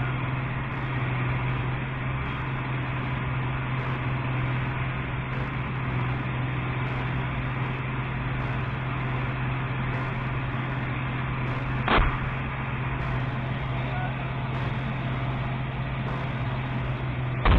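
BMP-2 infantry fighting vehicle running under way, a steady low engine drone with track and wind noise. A single sharp crack about twelve seconds in, and a louder bang right at the end.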